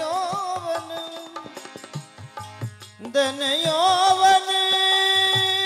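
Live devotional folk music: a male voice holds a wavering note, breaks off for a short passage of hand-drum strokes about a second and a half in, then comes back a little after three seconds, rising into a long held note over a steady harmonium tone.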